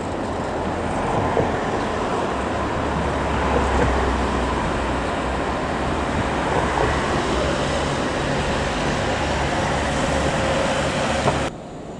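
Steady engine roar with a deep rumble underneath, cutting off suddenly near the end.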